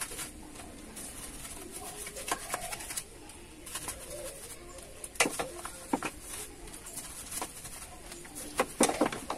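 A dove cooing in repeated low notes, over the scratching of a bristle brush scrubbing soapy engine parts. A few sharp knocks come about five seconds in and near the end.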